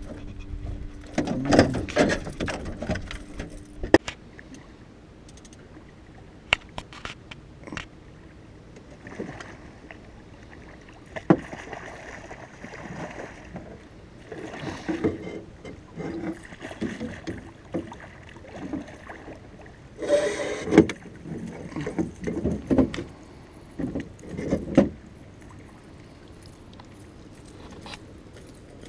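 Gear knocking and rattling in a small aluminium fishing boat, with water splashing as a hooked lake trout is played at the surface beside the boat and scooped into a landing net. The sounds come in scattered clusters of knocks and sharp clicks, busiest near the start and again about twenty seconds in.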